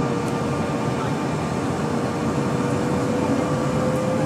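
Bombardier CRJ-1000's rear-mounted General Electric CF34 turbofans at takeoff thrust, heard from inside the cabin: a loud steady rush with a whine that slowly rises in pitch as the jet accelerates on its takeoff roll.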